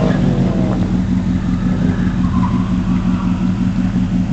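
2006 Pontiac GTO's 6.0-litre LS2 V8 dropping off in revs in the first second as the car comes off the throttle, then running low and steady as it rolls slowly.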